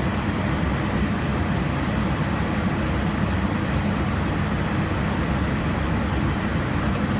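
Airliner flight-deck noise at cruise: a steady, deep rush of air, constant in level.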